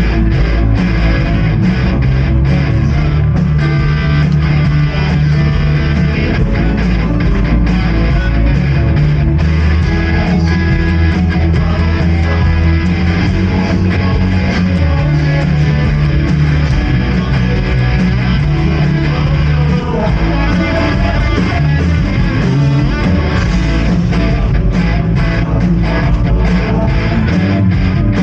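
Live worship band playing a praise song, with electric guitar, bass guitar and a steady drum beat.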